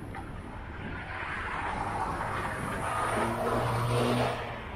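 A motor vehicle passing: tyre and engine noise builds over a few seconds, with a steady engine hum strongest about four seconds in, then falls away quickly.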